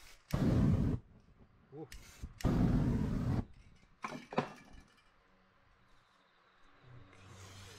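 Aerosol spray paint can sprayed in two short bursts of hiss, each under a second, with a few softer short sprays and small noises between.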